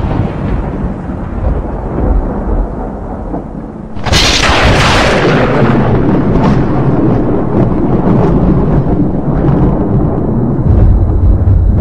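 Thunder: a rumble fades out, then about four seconds in a sudden sharp crack of thunder rolls on into a long, low rumble that swells again near the end.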